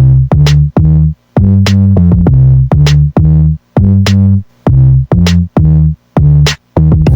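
Electronic background music with a steady drum-machine beat and deep bass notes repeating about twice a second.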